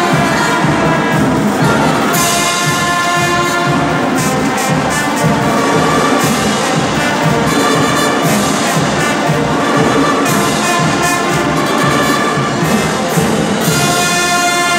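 Marching band of clarinets, flutes, saxophones, trumpets and sousaphones playing a tune together, full band at a steady loud level.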